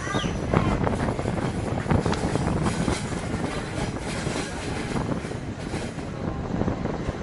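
Heritage passenger train rolling along the track, heard from an open carriage window: a steady rumble of wheels on rail with irregular clacks, and wind on the microphone.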